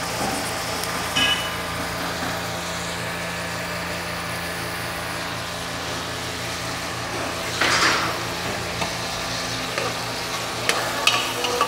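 Sliced onions frying in oil in a pan, a low steady sizzle over a constant hum, with a few short scrapes of the stirring spoon against the pan.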